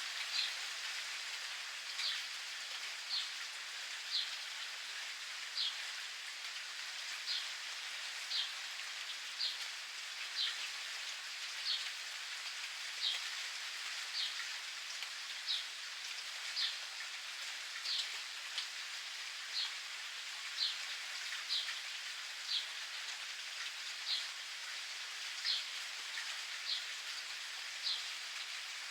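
Steady rain pattering, with a bird repeating a short, high, falling chirp about once a second.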